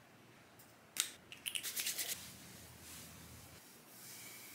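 Hands rubbing and rustling through hair close to the microphone: a sudden scratch about a second in, then a quick run of scratchy strokes, easing into a softer rustle.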